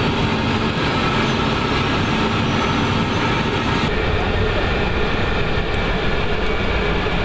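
Steady cabin noise inside a KC-135 Stratotanker: engine and airflow noise. About four seconds in it changes to a deeper rumble with less hiss.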